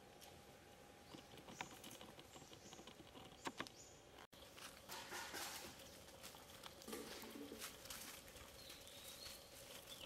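Faint outdoor ambience with soft scattered patter and clicks and a few brief, faint high chirps.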